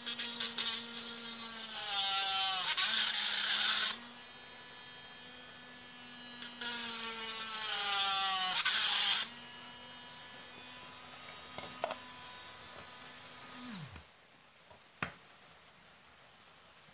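Homemade mini drill made from a salvaged small DC motor, running with a steady whine and twice grinding into a printed circuit board with loud cutting noise, its pitch sagging under the load as the bit bites. About 14 s in it is switched off and spins down with a falling whine, followed by a single click.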